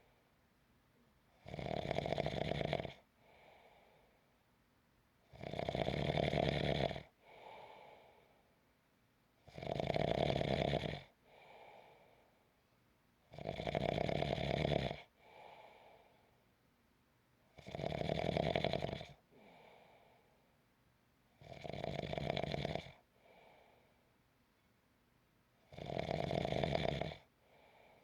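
A person snoring in a slow, even rhythm: seven loud snores about four seconds apart, each lasting about a second and a half and followed by a fainter, shorter breath.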